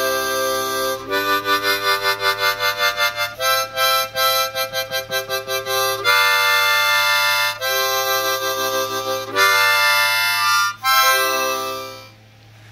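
Juarez harmonica in C# played with alternating blow and draw chords. Some chords are held, and others are pulsed rapidly at about five a second. The playing stops just before the end.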